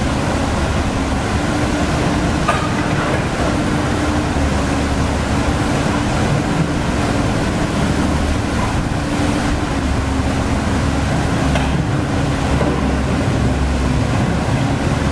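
Komatsu PC130F hydraulic excavator's diesel engine running steadily, over the rush of river water pouring across a weir.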